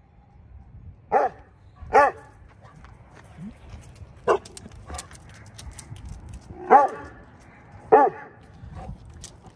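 A dog barking: five short single barks, two close pairs with one bark between them, spaced about a second to two and a half seconds apart.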